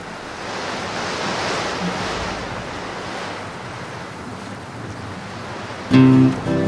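Heavy sea waves breaking and rushing past a tall sailing ship, with spray and wind over the deck; the rushing swells up and then eases off. About six seconds in, strummed acoustic guitar music starts.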